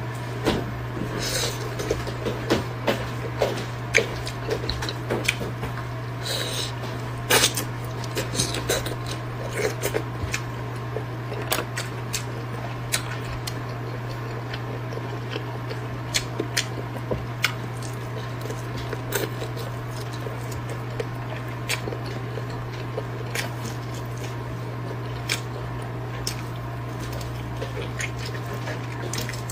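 Close-miked eating of fried skewers: irregular crunchy bites, wet chewing and the odd clink of a utensil, over a steady low hum.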